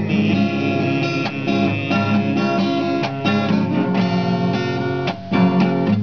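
Acoustic guitar strummed in a steady rhythm, playing the chords of a worship song between sung lines, with a brief drop in level about five seconds in.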